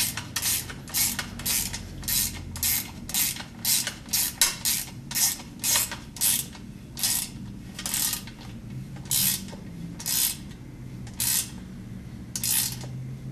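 Socket ratchet clicking through repeated back-strokes as a bolt on a satellite dish roof mount is tightened. The strokes come about three a second at first and slow to about one a second as the bolt gets tight.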